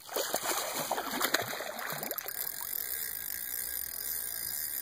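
A large brown trout on the line thrashing at the water's surface, with irregular splashes for about the first two seconds, then a steady hiss.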